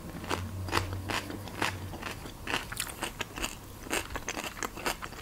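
Close-up chewing of a mouthful of food: irregular crunches, clicks and moist crackles, with a low hum during the first two seconds.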